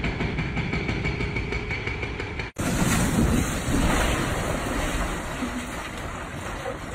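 Vehicle noise from two clips cut together: a steady mechanical rumble with a faint steady tone, then, after a brief dropout under three seconds in, louder rumbling noise.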